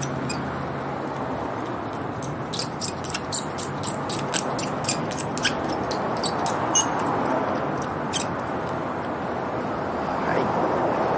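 Razor-blade scraper held upright and dragged across windscreen glass, scraping off cured chip-repair resin: a quick run of short, high squeaks, about four a second, starting about two seconds in and stopping about eight seconds in.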